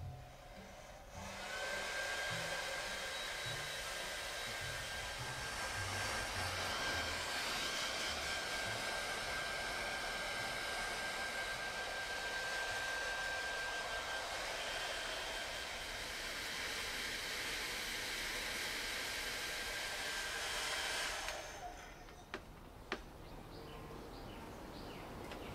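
Handheld pet hair dryer running steadily on a cat's coat: rushing air with a thin, high motor whine. It switches on about a second in and cuts off about 21 seconds in, followed by a couple of light clicks.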